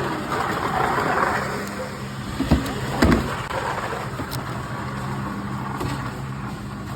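Busy warehouse store ambience: a steady low hum under indistinct background murmur. Two short knocks come about two and a half and three seconds in.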